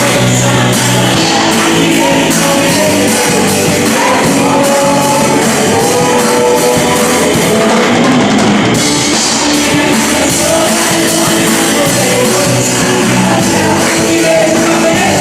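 A live band playing a loud rock-style worship song, with drum kit and sustained instrument notes and some singing.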